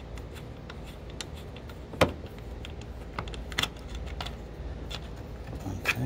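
Small metallic clicks and clinks as a Jeep hood-latch bolt is worked loose and unscrewed by hand, with one sharper clink about two seconds in and a few more later. A steady low background hum runs underneath.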